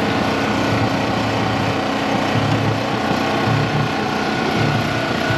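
A small engine running steadily, with a low pulse coming round about once a second.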